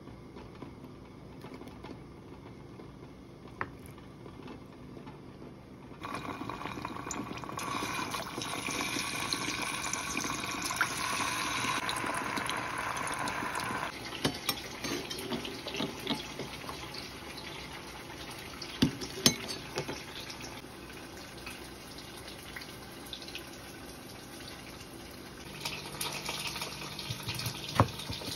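Water running from a kitchen tap into a sink, loud and steady for several seconds after a quiet start, then lighter splashing. A few sharp knocks of a kitchen knife on a wooden chopping board come through, two close together in the middle and more near the end.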